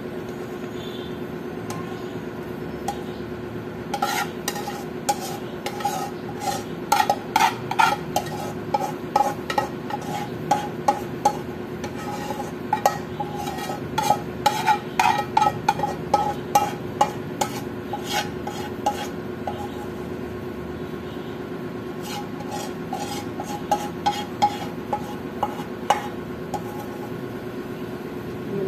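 A metal utensil scraping and tapping against a wok as thick, sticky bukayo (coconut candy) is pushed out of it, in irregular runs of quick clicks and scrapes that start a few seconds in, pause briefly, and resume.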